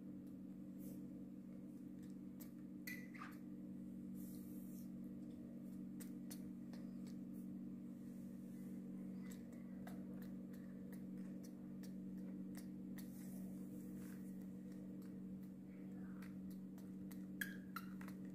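Quiet room tone: a steady low hum with faint scattered clicks and ticks. A brief falling chirp-like sound comes about three seconds in, and a sharp tap near the end.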